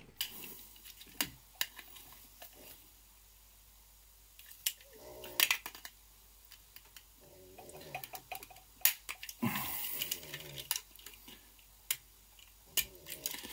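A flat screwdriver clicking and scraping as it prises at the plastic frame of a car phone holder. There are scattered sharp clicks, a few short scraping stretches, and the plastic cracking under the strain.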